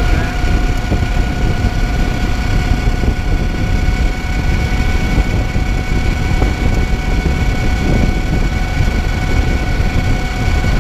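Wind buffeting the microphone of an electric motorcycle at speed, with the steady high whine of the 2009 Zero MX's electric motor and chain drive underneath, geared on a 22-tooth sprocket. The whine holds at a constant pitch, as at a steady cruise.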